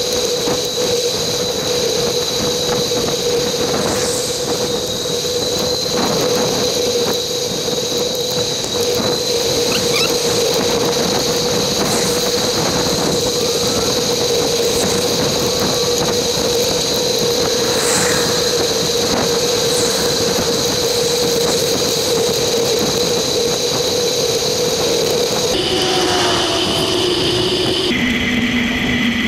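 Riding noise from a bicycle ride, played back sped up: a steady rush with a constant high-pitched hum, pitched up by the fast playback. Near the end the hum drops in pitch in two steps as the playback speed changes.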